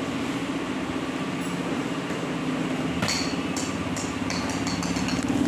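A steady low hum, and about three seconds in a quick run of light clicks and knocks lasting just over a second: woven bamboo winnowing trays handled and knocked about on a tile floor.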